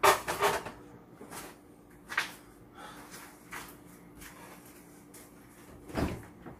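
Clattering knocks of a portable butane gas stove being handled and set down, followed by scattered lighter clunks and a heavier thump near the end.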